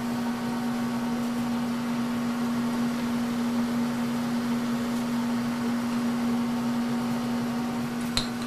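Steady electric machine hum with one strong low tone and fainter overtones, from machinery left running in the machine shop while the workpiece is flipped in the chuck. A few sharp clicks come near the end.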